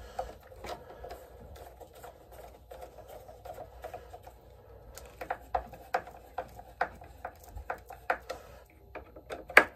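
Screwdriver driving the mounting screws of a toggle switch into a metal electrical box: small clicks and scrapes of the screws and tip, coming about one to two a second from about five seconds in, with a louder click near the end.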